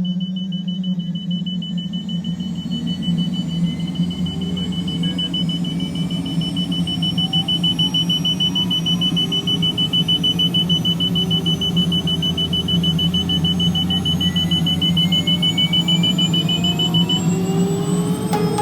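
Helicopter turbine engine winding up during start, its whine rising steadily in pitch under a low hum. A steady high-pitched cockpit warning tone sounds over it and cuts off about a second before the end.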